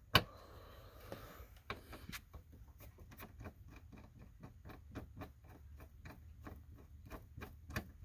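Phillips screwdriver unscrewing the screws of a computer's monitor stand mount: a sharp click at the start, then steady light clicking about four times a second as the screwdriver is turned.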